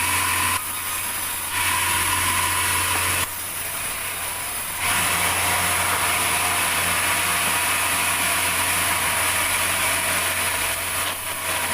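Sawmill saw running and cutting a large durian log: a steady low hum with a hiss of sawing over it. The sound dips in level briefly twice in the first five seconds.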